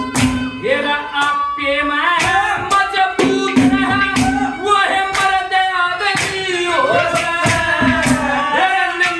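A voice singing a Haryanvi ragni folk song, with instrumental accompaniment and percussion strokes at a steady beat of about two a second.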